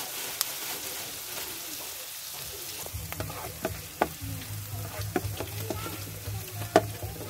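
Diced onion and garlic sizzling in oil in a nonstick frying pan, stirred with a plastic spoon. From about three seconds in the spoon knocks and scrapes against the pan several times, the sharpest knock near the end, and a low hum comes in at the same point.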